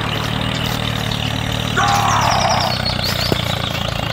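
Tractor engine running steadily at idle, a low even chug. About two seconds in, a short voice-like cry falls in pitch over it.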